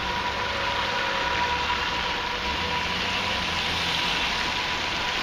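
Road traffic moving off over a level crossing: car engines and tyres hissing on a wet, slushy road. A thin steady high tone fades out about three seconds in.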